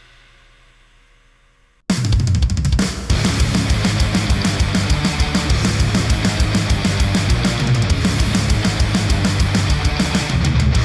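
Recorded music played back through Sennheiser headphones: the tail of one track fades out, then about two seconds in a loud drum-kit-driven rock track starts abruptly with quick, regular kick and snare hits under distorted band sound.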